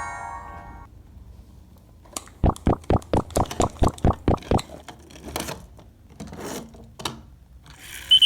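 A fast run of about a dozen sharp clicks over two seconds, then a few scattered knocks, from plastic toy parts being handled and clicked together.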